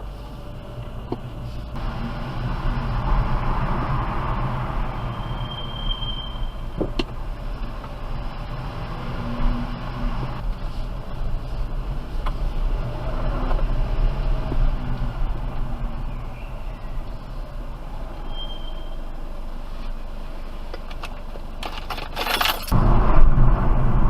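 BMW 428i convertible's M Sport brakes squealing at low speed: two short, high, steady squeals, one about six seconds in and a fainter one about eighteen seconds in, over the car's low road and running noise, which grows louder near the end.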